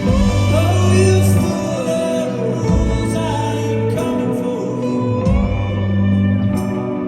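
Live band music: a singing voice carrying a gliding melody over guitars and held bass notes.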